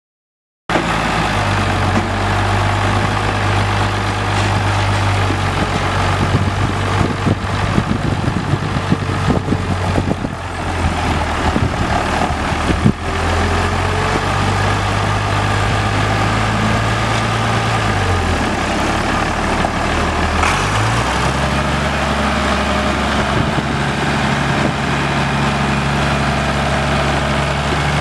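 International 806 tractor's six-cylinder diesel engine running steadily. About twenty seconds in its speed dips, then rises to a higher steady pitch.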